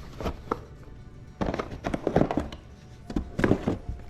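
Background music, with two bursts of knocking and clattering from boxes being handled and set down, the first about a second and a half in and the second near the end.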